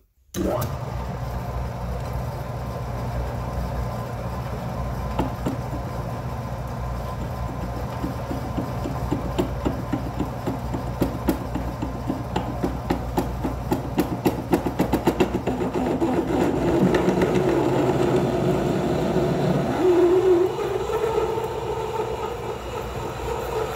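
Atlas metal lathe running while a large twist drill in the tailstock chuck drills into 2-inch hex stock. A fast rattling chatter builds in the middle, and about 20 seconds in the cut settles into a steady tone as a long chip peels off the bit.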